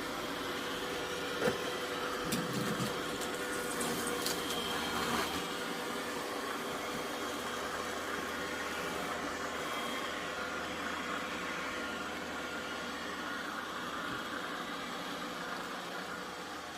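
Roborock Q7 Max robot vacuum running mid-clean: a steady fan whir with a thin whine, and a few light knocks and rattles in the first five seconds.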